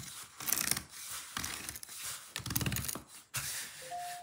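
Red plastic Spin Doctor tile leveling cap being twisted by hand down its threaded post over the tile joint, giving irregular plastic clicks and scrapes against the tile, with a short squeak near the end. Tightening it draws the lower tile edges up level with the neighbouring tile.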